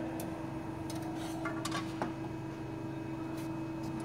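CNC hydraulic press brake's hydraulic pump running with a steady hum, with a few light clicks and knocks, mostly a little after the start.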